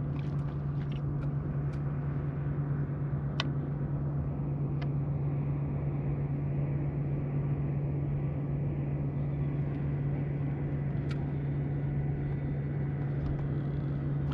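Boat motor humming steadily at a low pitch, with a few small sharp ticks over it.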